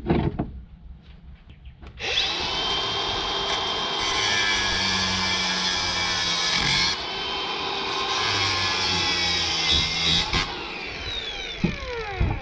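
Makita DGA504 cordless angle grinder cutting into the metal casing of a small electric motor, a loud steady grinding with a high whine that starts about two seconds in. Near the end its pitch falls as the disc winds down. There are a couple of knocks just before it starts.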